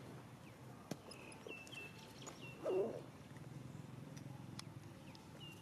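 Macaque giving one short call that bends in pitch about three seconds in, after a run of faint, short, high chirps.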